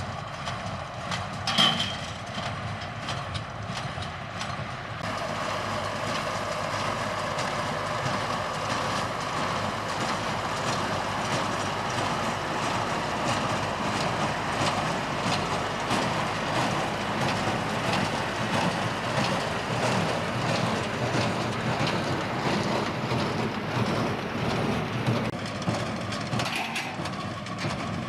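Tractor-drawn hay baler at work: the tractor engine runs steadily under the baler's repetitive mechanical clatter. It grows a little louder about five seconds in.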